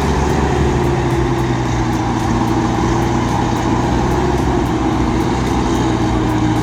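Volvo FM440 logging truck's inline-six diesel engine pulling hard under a full load up a hill: a steady, heavy drone whose pitch sags slightly as it goes.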